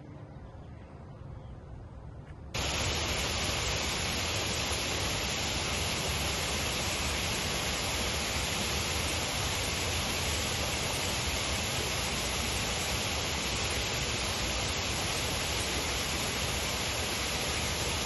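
Steady, even static-like hiss that starts abruptly about two and a half seconds in and then holds at one level without change, after a faint quiet start.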